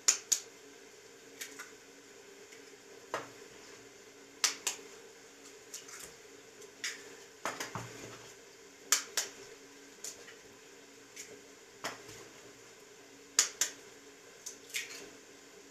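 Eggs being cracked against the rim of a plastic mixing bowl: sharp taps every second or two, many in quick pairs, over a low steady hum.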